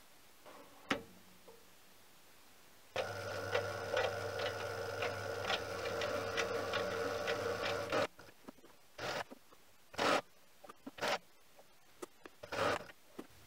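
A mini lathe runs under power for about five seconds, a steady motor hum with a regular tick about twice a second, while single-point threading a leadscrew. A click comes about a second in, and a few short, sharp noises follow once it stops.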